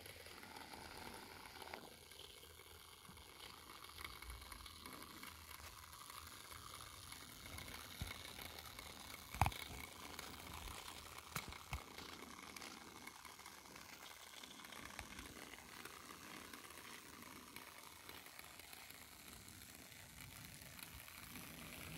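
Model BR 53 steam locomotive running very slowly along its track: a faint, steady mechanical whir with a few sharp clicks, the loudest about nine seconds in and two more shortly after.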